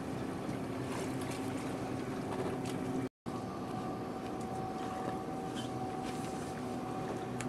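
Pontoon boat's motor running steadily under way, towing a water-skier: a low steady hum over an even hiss. The sound cuts out for an instant about three seconds in.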